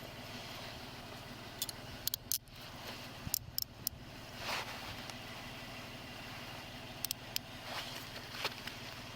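Steady low hum of an idling vehicle engine, with scattered short sharp clicks and rustles every few seconds.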